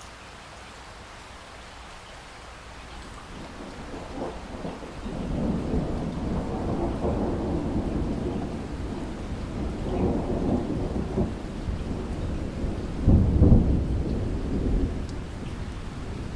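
Steady rain with a long roll of thunder. The thunder builds from about four seconds in, swells several times, is loudest about three-quarters of the way through, and dies away near the end.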